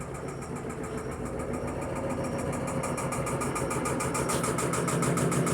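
Electrolux Perfect Wash 16 kg top-load washing machine in its spin cycle, running with a steady rapid pulsing hum that gets steadily louder. The machine shakes and is noisy during the spin, which is the owner's complaint about it.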